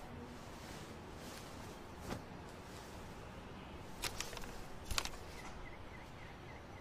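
Quiet room ambience with soft rustling as a paper note is pulled off and handled, including short crinkles about four and five seconds in. A faint series of small high chirps comes in near the end.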